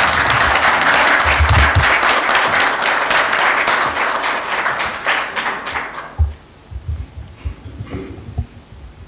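Audience applauding, a dense patter of many hands clapping that dies away after about six seconds, leaving a few scattered claps and low knocks.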